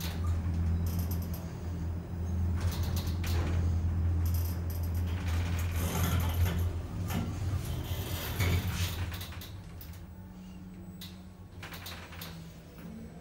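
Tecno passenger lift car travelling down: a steady low drive hum with scattered clicks and creaks from the car, dying away about nine to ten seconds in as the lift slows and stops at the floor.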